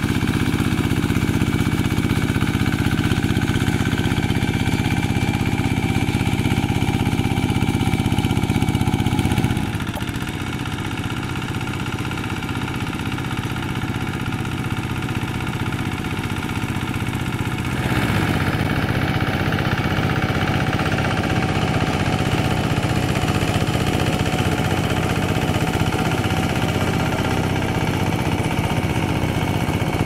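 Two-wheel hand tractor's single-cylinder diesel engine running steadily under load as it ploughs, steel cage wheels churning through flooded paddy mud and water. The engine note shifts in level and pitch twice, about ten and eighteen seconds in.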